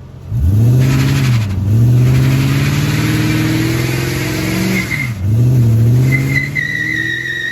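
Car engine revved hard under full throttle, climbing, dipping and climbing again twice as the pedal is worked unevenly. Near the end the tyres start a steady high squeal as the rear wheels spin in a burnout.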